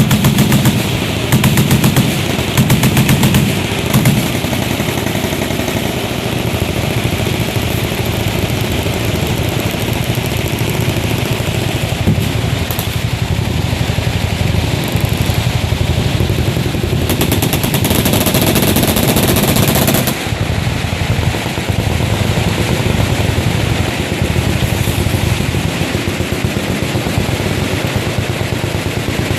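Several machine guns firing full-auto together: a few short bursts in the first four seconds, then continuous overlapping automatic fire, louder and sharper for a few seconds past the middle.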